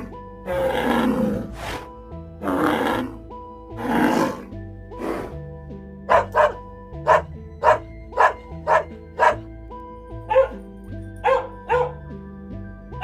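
A dog barking over background music: a few longer, rough barks in the first half, then a quick run of short, sharp barks, about two a second.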